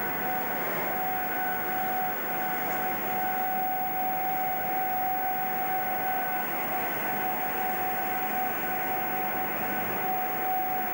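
RENFE 276-series electric locomotive moving slowly past, with a steady high whine held at one pitch over a constant rushing noise.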